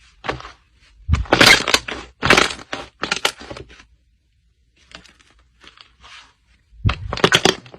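Slime being squeezed and pressed by hand, giving bursts of crackling and popping: three loud squishes in the first few seconds, fainter ones in the middle, and another loud one near the end.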